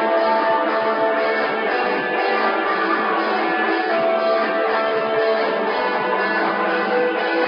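Live shoegaze band playing: a dense, steady wash of strummed electric guitars with many held notes layered together.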